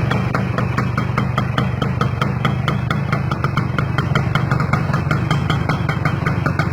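Kawasaki GTO motorcycle's two-stroke single-cylinder engine idling steadily, with a quick, even ticking over its low hum.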